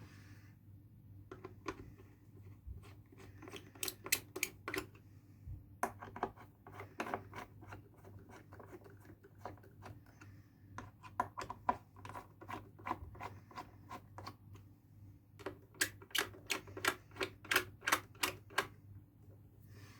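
Bursts of quick, sharp clicks, several a second, with short pauses between runs, from small hand tools and parts being worked during speaker reassembly. A faint steady low hum runs underneath.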